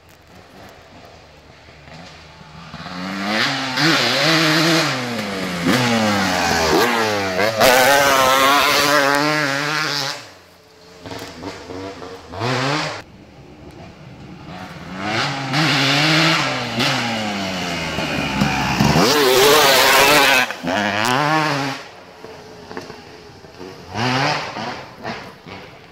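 KTM dirt bike engine revving hard, its pitch climbing and dropping again and again as the throttle is worked and gears change. It is loudest in two long stretches, about 3 to 10 seconds in and about 15 to 21 seconds in, fading between them with shorter blips of throttle.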